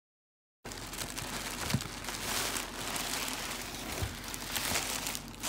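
Clear plastic packaging bag crinkling and cardboard box flaps rustling as a bagged handbag is lifted out of a shipping box, with a couple of light knocks. The sound starts about half a second in.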